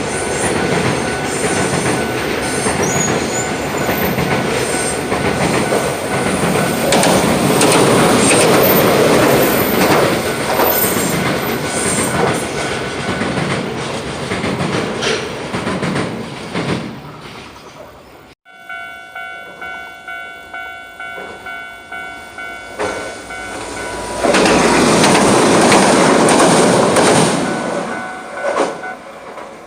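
Hiroden train rolling past at a level crossing, its wheels clattering rhythmically over the rail joints. After a sudden cut about two-thirds of the way through, a level-crossing warning bell rings in repeated pulses, and another train runs loudly past for a few seconds.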